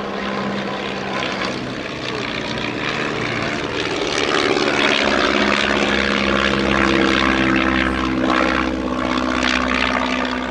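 Piston engine and propeller of a Stampe SV-4C biplane in aerobatic display flight, a steady drone that gets louder about four seconds in as the aircraft comes closer.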